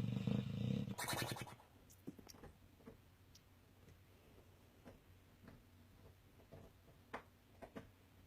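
A sleeping dog snoring: one snore lasting about a second, followed at once by a shorter, noisy breath. Then a few seconds of quiet with a few faint small clicks.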